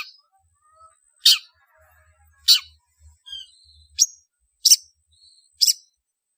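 Long-tailed shrike calling: six short, harsh calls about a second apart, with faint thin whistles between them.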